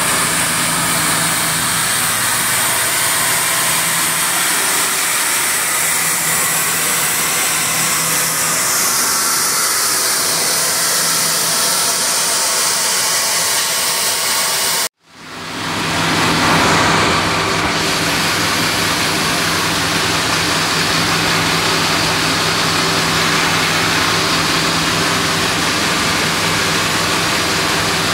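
Sawmill machinery running steadily: a constant low hum under a broad, even hiss. The sound cuts out for a moment about halfway through, then the same running noise resumes.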